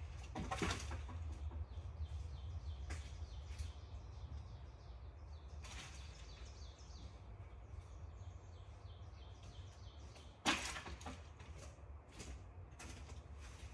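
Branches and twigs being tossed and stepped on: scattered crackles and rustles of dry brush and leaf litter, with a sharp snap about ten and a half seconds in. Small birds chirp faintly in the background.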